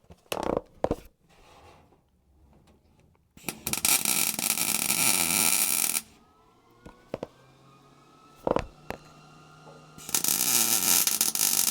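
Welder laying two welds on a steel brace tube, each a steady crackling burst of two to three seconds, the second starting about six seconds after the first. A few short knocks come before and between the welds.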